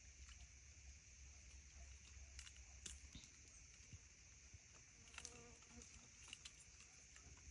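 Near silence: a faint steady high hiss with scattered faint clicks, and a low hum over the first three seconds.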